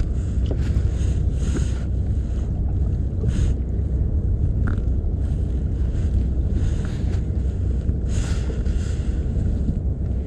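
Wind buffeting the microphone in a steady rumble, with short splashes of water against a kayak's hull every few seconds.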